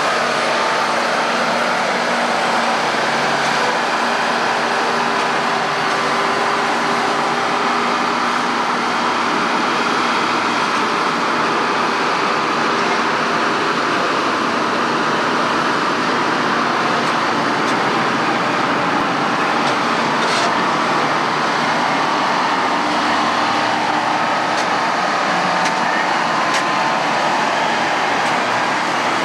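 Heavy log-yard machinery with a large engine running steadily, with a few short clicks in the second half.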